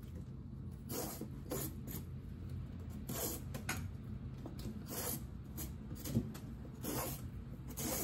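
Short scraping strokes of a blade peeling the skin off a bottle gourd (lauki), coming irregularly about once a second over a steady low hum.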